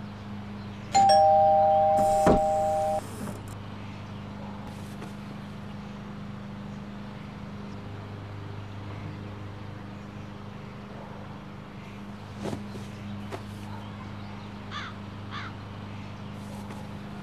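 Doorbell chiming a two-note ding-dong, a higher note then a lower one, fading over about two seconds, with a sharp click during it. Then only a steady low hum and a few faint knocks.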